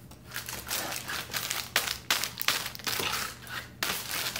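Clear plastic bag shaken and crinkled in a rapid series of rustling bursts.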